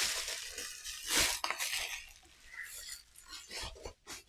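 Plastic protective packaging crinkling and rustling as it is handled and pulled off a camera lens: a dense burst of crinkling in the first second and a half, loudest about a second in, then scattered crackles and a few light knocks.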